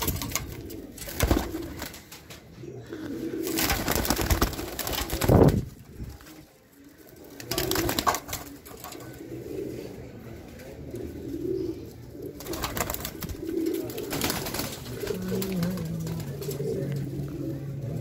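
Domestic pigeons cooing repeatedly in a loft, a low murmur coming again about every second. Several loud rushes of noise break in, the loudest about five seconds in.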